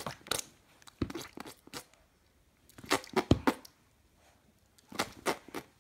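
A baby's short, wet mouth sounds: clicks, lip smacks and brief grunts, coming in small clusters with gaps between.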